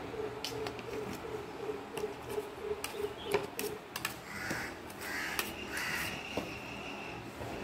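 Crows cawing, with a metal spoon clinking and scraping in a steel bowl as chopped raw mango is mixed with salt.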